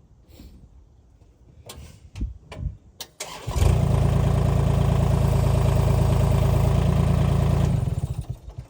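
A few knocks, then an engine comes up sharply to a steady high speed about three and a half seconds in, holds for about four seconds, and drops away near the end.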